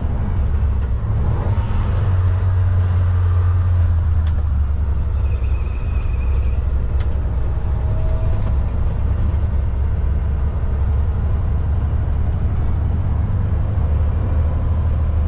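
Semi-truck tractor driving bobtail, without a trailer: a steady low diesel engine drone with road noise.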